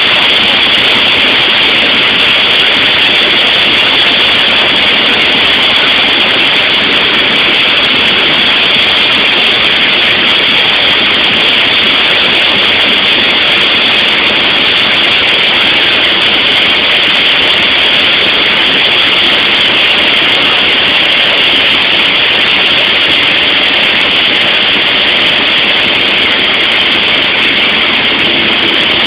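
Loud, steady engine and wind noise inside a small airplane's cabin in flight, a constant drone with no change in pitch.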